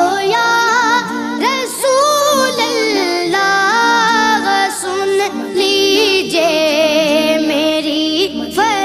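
Background music with a woman singing a melody, her pitch wavering and gliding over sustained instrumental notes.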